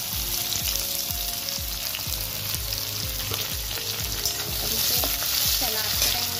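Sliced onions frying and sizzling in hot oil in a metal kadhai, with a metal slotted spoon stirring and scraping against the pan near the end. A steady beat of background music runs underneath.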